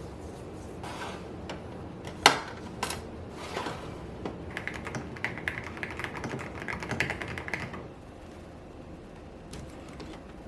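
Typing on a mechanical keyboard: a few separate key clicks with one sharp loud clack about two seconds in, then a fast run of keystrokes for about three seconds that stops near the end.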